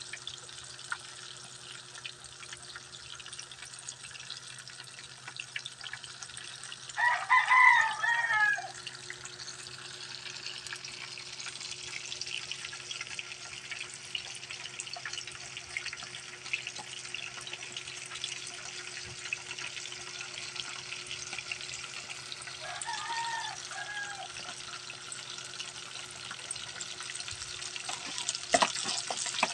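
Oarfish pieces deep-frying in a pan of hot oil, a steady sizzling crackle. A rooster crows loudly about seven seconds in, and a shorter, fainter crow comes around twenty-three seconds in. Near the end a few clicks of a metal fork against the fish basin.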